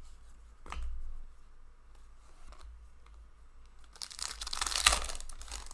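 Hockey trading cards being handled: a soft tap about a second in, then about a second and a half of crinkling, tearing paper noise near the end.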